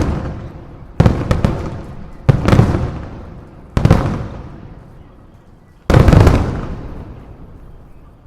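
Aerial firework shells bursting overhead: a run of sharp booms one to two seconds apart, each trailing off in a long rolling echo, the last and loudest about six seconds in.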